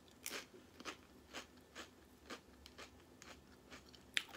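A person chewing a mouthful of Quest protein chips, with faint crisp crunches about twice a second and one sharper crunch near the end.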